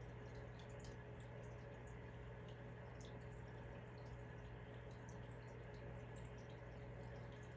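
Aquarium filter water trickling and dripping, with many small irregular high ticks over a steady low hum from the pump.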